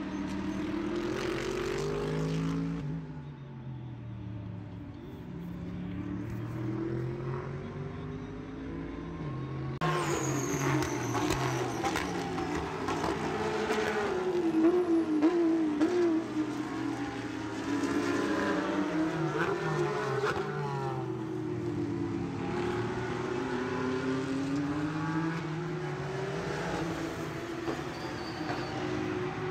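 Motor engines revving, their pitch sweeping up and down again and again; louder from about ten seconds in.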